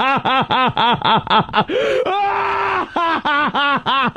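A man doing a theatrical diabolical laugh: a fast run of 'ha-ha-ha' syllables, about four a second, broken near the middle by one long drawn-out note, then a second run.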